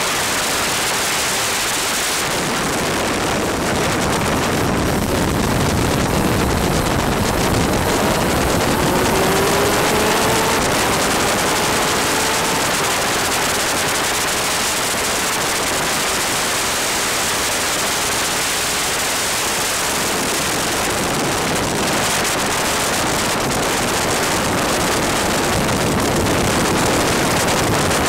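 Wind and rain rushing over an onboard microphone on a superkart at racing speed on a wet track, a steady hiss that nearly buries the kart's two-stroke engine. The engine's pitch shows through faintly, rising a little about a third of the way in.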